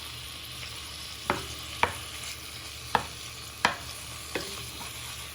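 Chicken and chorizo sizzling as they fry in a saucepan, while a wooden spoon stirs and breaks up the pieces, knocking against the pan about five times.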